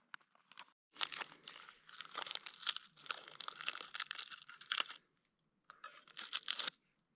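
Plastic food packaging crinkling and tearing in two stretches, the first about four seconds long and the second about a second long.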